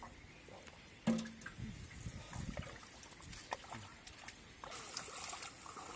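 Shallow water trickling and lightly splashing around people wading, with one sharp thump about a second in; the trickling grows louder near the end.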